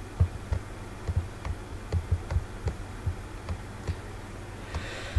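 Irregular soft low knocks with light clicks, about three a second, over a steady electrical hum. A short hiss comes near the end.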